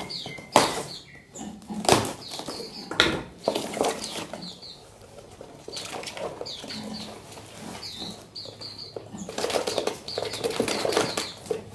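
Small wild-caught songbirds fluttering their wings in bursts while being handled and unpacked, with short high chirps between the flutters.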